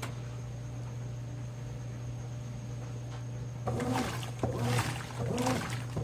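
Consul CWE13AB 13 kg top-load washing machine. A steady low hum runs while the tub sits in a soak, then a little under four seconds in the agitator starts, churning and sloshing the water in uneven back-and-forth strokes.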